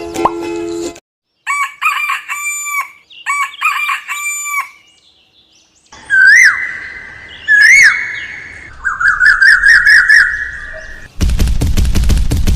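A rooster crowing twice, after a run of short repeated bird calls and followed by a quick string of chirping notes. Music cuts off about a second in, and near the end a loud, crackling rush of noise sets in.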